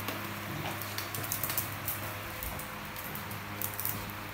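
Dogs scuffling: scattered, irregular light clicks and scuffs over a steady low hum.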